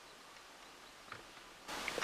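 Faint background hiss with a soft click about a second in; the hiss steps up abruptly to a louder level near the end, followed by a couple of clicks.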